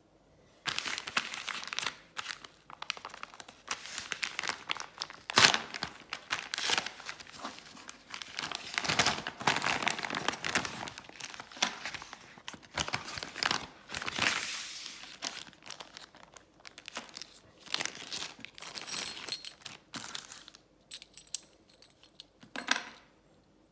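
A padded paper mailer envelope being handled and torn open, its paper crinkling and rustling in irregular bursts. Near the end the sound turns to sparser, lighter clicks and rustles as a small plastic bag of metal banana plugs is handled.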